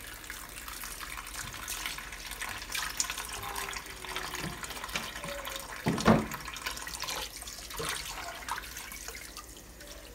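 Kitchen faucet running a thin steady stream into a bowl of water in a stainless steel sink, with continuous trickling and splashing. A single louder knock or splash about six seconds in.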